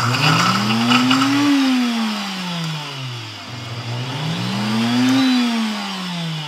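Countertop blender run on pulse twice while crushing pork rinds. Each time the motor whine rises as it spins up, then sinks as it winds down after the button is let go.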